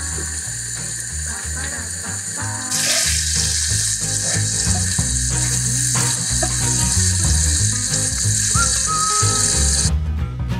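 Shrimp simmering in butter and beer in a frying pan: a steady bubbling sizzle that grows louder about three seconds in and cuts off suddenly near the end, with background music underneath.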